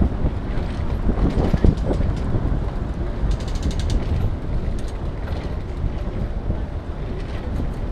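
Riding a bicycle: steady rumble of the tyres on the street and wind on the microphone. About three seconds in there is a run of rapid ratchet-like ticking lasting about a second.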